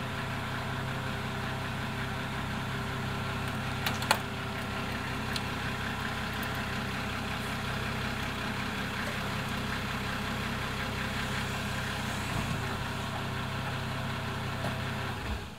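The motor of a car-lifting rig running steadily under load as it hoists a car by straps, with one sharp knock about four seconds in. The running stops suddenly just before the end.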